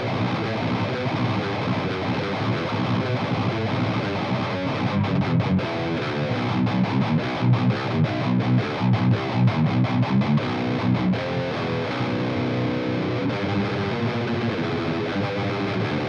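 Electric guitar riffing through a Dan Gower-modded Marshall JMP head, driven by an overdrive pedal and played through a single Vintage 30 speaker in an isolation cab. About five seconds in the riff turns to short, choppy chugs with abrupt silences between them, then moves to longer held notes.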